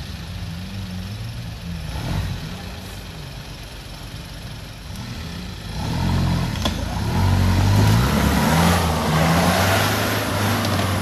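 Off-road 4x4 engine revving up and down, getting much louder about six seconds in as the throttle opens harder.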